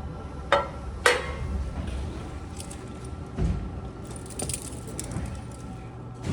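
Metal parts and tools being handled: two sharp clanks about half a second and a second in, a dull knock, then light jingling clinks. A steady low hum runs underneath.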